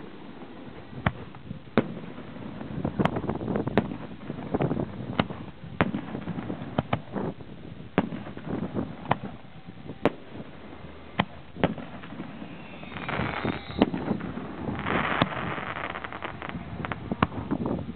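Aerial fireworks shells bursting in a string of sharp bangs, roughly one a second, with a stretch of denser hissing noise about thirteen seconds in.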